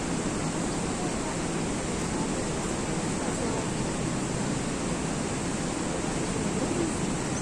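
Steady, even rush of water cascading at the Shushtar waterfalls, part of the Shushtar Historical Hydraulic System.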